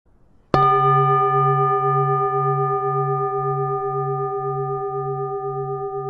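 A singing bowl struck once about half a second in, then ringing on with several steady tones that slowly fade, the lowest tone wavering about twice a second.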